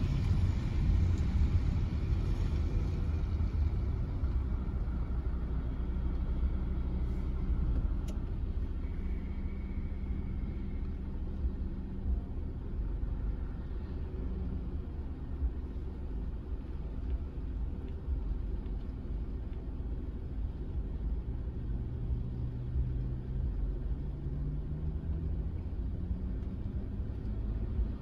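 Steady low rumble inside a car's cabin: the hiss of tyres on the wet road fades over the first few seconds as the car slows to a stop, leaving the low hum of the car standing at idle.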